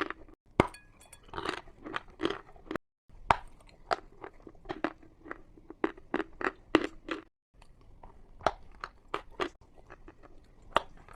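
Chalk being bitten and chewed: a dense run of sharp, crisp crunches, several a second. The sound drops to dead silence for a moment three times, where the audio is cut.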